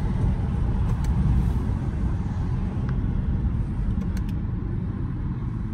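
Low road and wind rumble inside a moving Mercedes-AMG GLE 53 with the windows down, steady and gradually getting quieter toward the end.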